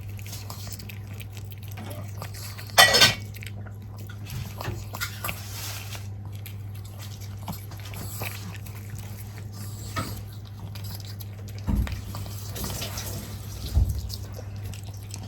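A dog at its food bowl: scattered small clinks against the bowl, one louder clatter about three seconds in, and two soft thumps near the end, over a steady low hum.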